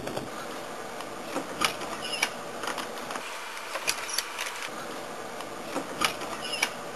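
Computer mouse clicking: about a dozen short, irregular clicks spread over several seconds, over a faint steady room hiss.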